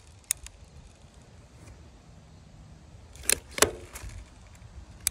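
Sharp clicks from a caulking gun being worked while it runs silicone along the end-cap seam of a copper half-round gutter: two light clicks just after the start, two louder ones close together a little past halfway, and one more at the end.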